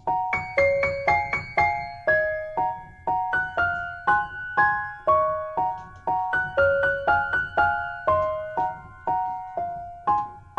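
Background music: a soft melody of single piano notes, about two a second, each ringing and fading before the next.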